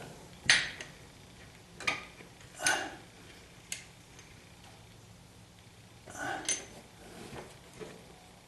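Scattered light metallic clicks and knocks, about half a dozen, from the speedometer cable's driven gear and fitting being worked into the transmission housing.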